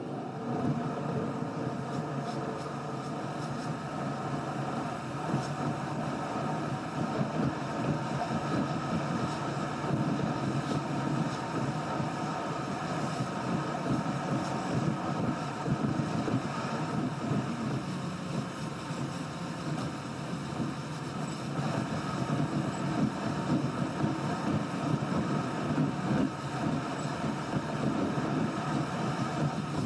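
Sped-up in-car driving sound of a car on the road: a steady mix of road and engine noise heard through the cabin, with a fluttering loudness.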